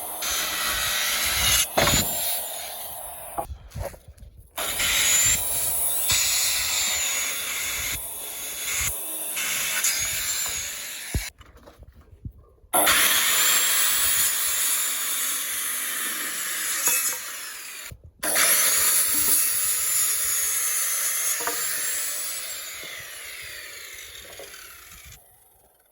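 A power tool running at building work, in several stretches of steady, harsh noise broken by abrupt cuts. It fades away near the end.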